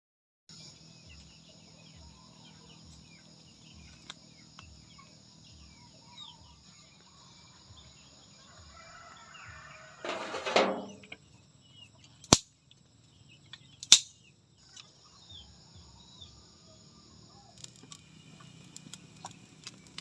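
Outdoor rural ambience: a steady high-pitched buzz with scattered bird and chicken calls. A louder burst comes about halfway through, followed by two sharp clicks.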